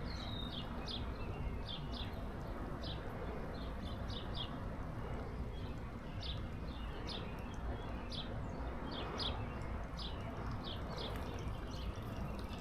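A bird giving short, high chirps over and over, about two a second, over a steady low background rumble.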